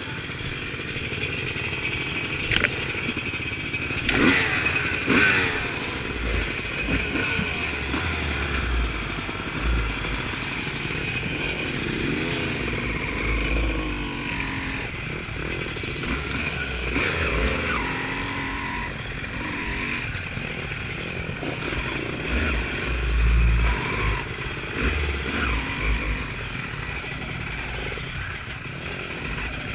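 Honda CR250 two-stroke motocross bike being ridden off-road, its engine revving up and down again and again as the throttle is opened and shut.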